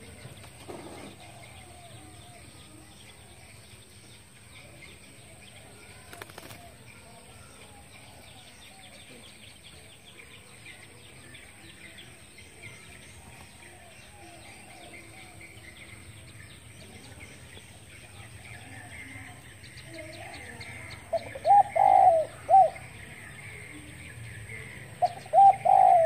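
Spotted dove cooing: two short phrases of a few coos each near the end, over faint high chirping.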